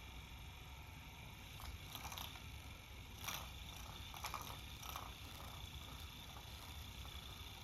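Small motor of an electric spinning feather cat toy whirring quietly, with a few light taps as a cat paws at the spinning feathers.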